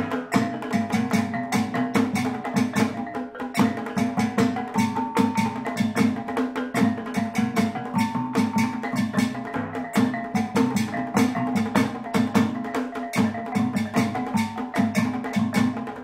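Kulintang gong music: a row of tuned knobbed gongs struck with wooden beaters in fast melodic runs, ringing over a rapid beat on a dabakan goblet drum played with sticks.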